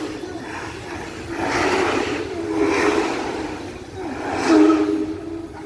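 Taiwan Railway DT668 steam locomotive: slow, spaced puffs of steam exhaust chuffing about once a second as it moves off, over a steady low hum of several tones.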